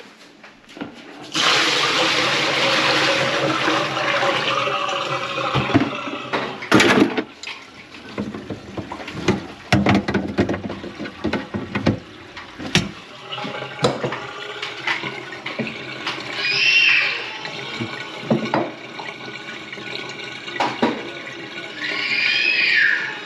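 Water running into a kitchen sink and draining, starting suddenly about a second in and easing off after a few seconds. Scattered knocks follow, with two short squeaky glides, one midway and one near the end.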